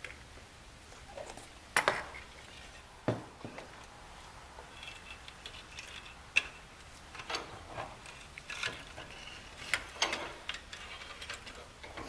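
Metal parts being handled at a workbench: irregular clanks and clicks, with a few brief metallic rings, as a fuel sending unit fitted with a new electric fuel pump is moved and clamped in a bench vise.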